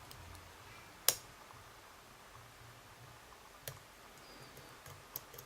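Lock pick and tension wrench working inside a pin-tumbler lock: a few faint, sharp metallic clicks, the clearest about a second in, another past the middle and a couple near the end.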